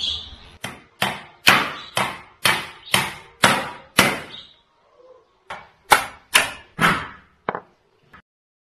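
Claw hammer driving nails through wooden slats into crosspieces lying on concrete. It lands a run of about eight steady blows, roughly two a second, then pauses briefly and lands six more, the last ones lighter, each blow ringing briefly.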